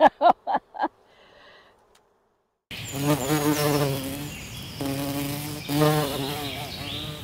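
A bee-buzzing sound effect that starts abruptly about three seconds in after a moment of silence. It swells three times, breaking off briefly twice. A few short sounds come in the first second.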